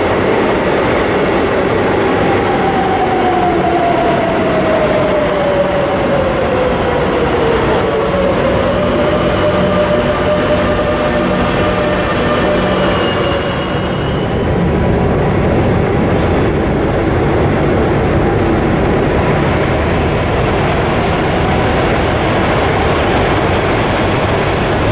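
Metro de Madrid 7000-series electric train braking into a station, its motor whine falling steadily in pitch and then levelling off as it slows to a stop. Later there is the steady running noise of a metro train heard from inside the car.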